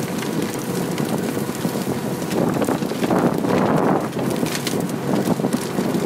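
John Deere 948L skidder running under load as it drags a heavy disc harrow through rough ground, with the harrow's discs and frame clattering and knocking over the soil. Wind buffets the microphone.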